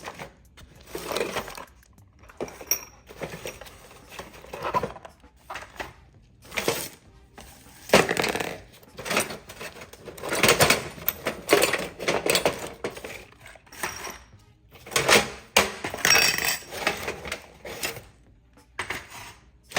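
Small metal tools and hardware, among them loose nails, clinking and clattering against each other as they are rummaged through and lifted out of an old toolbox, in irregular bursts of clatter with short pauses between.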